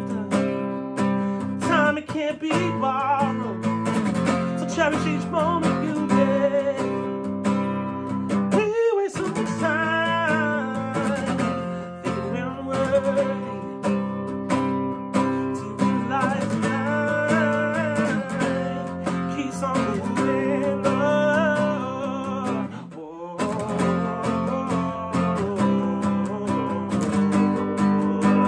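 Acoustic guitar strummed and picked, with a man singing over it. The playing breaks off briefly about twenty-three seconds in.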